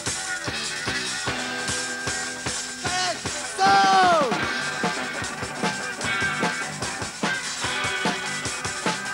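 A rock band playing live through the instrumental opening of a song, with a steady drum-kit beat. About four seconds in, a loud sustained note slides down in pitch.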